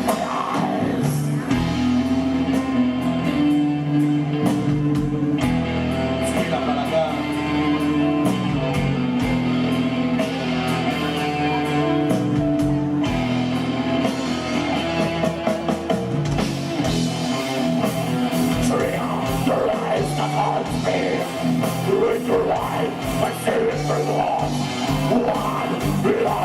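Live gothic-doom metal band playing: held guitar and keyboard chords over bass and drums, with the drumming growing busier about two-thirds of the way in.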